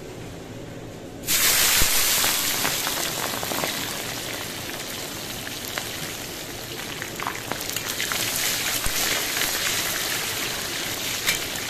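Sliced onions hitting smoking-hot oil in a cast-iron kazan, bursting into a loud, hissing sizzle about a second in that carries on as they fry, easing a little and then swelling again near the end.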